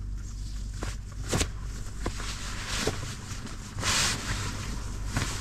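A duvet and its cotton cover rustling and swishing as they are handled and folded by hand, with a few soft knocks and a louder swish about four seconds in, over a steady low hum.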